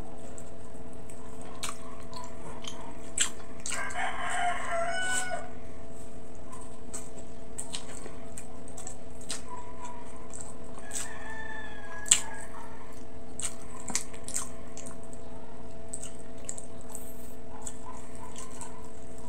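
Wet chewing and lip-smacking clicks of a person eating soft braised pork hock and rice. A rooster crows in the background about four seconds in and again, fainter, around eleven seconds, over a steady hum.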